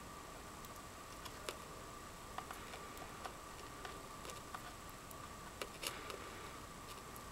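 Faint, irregular small clicks and ticks of plastic scoubidou lanyard strings being handled and woven, a few a little louder than the rest, over a steady faint background with a thin whine.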